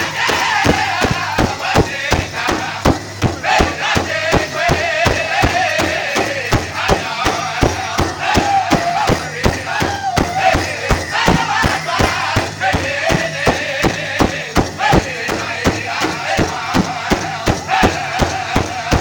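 Powwow drum group: several singers striking one large shared drum together in a steady, even beat while singing a high-pitched chant.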